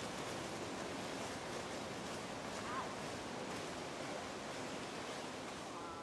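Steady outdoor forest ambience: an even background rush with no clear single source. One short high chirp comes a little under three seconds in.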